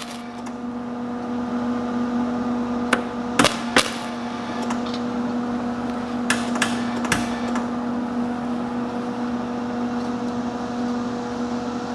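Wire-feed welder humming steadily, with a few short, sharp crackles of quick tack welds on thin steel tomato-cage wire, about three seconds in and again around six to seven seconds.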